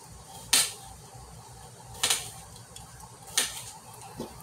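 Kitchen knife cutting through a cucumber onto a cutting board: three sharp knocks about a second and a half apart.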